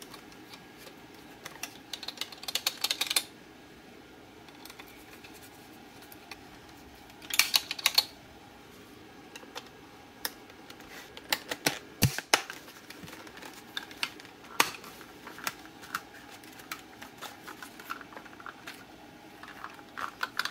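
Plastic clicks, rattles and scrapes from the Dyson DC58 handheld vacuum's housing parts being handled and pressed together, with two busier bursts of clatter and one sharp knock about twelve seconds in.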